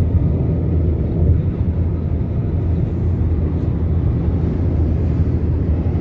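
Steady road and engine noise heard from inside a moving car's cabin, a low even drone with no distinct events.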